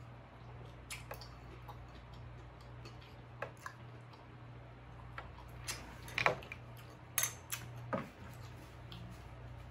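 Scattered sharp clinks and clicks of a metal fork against a glass bowl as ceviche is scooped out, the loudest about six seconds in, over a low steady hum.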